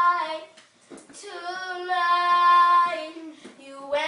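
A child singing unaccompanied, holding long, steady notes: one ends just after the start, and after a short breath a second is held for about a second and a half before the voice drops lower and bends up and down near the end.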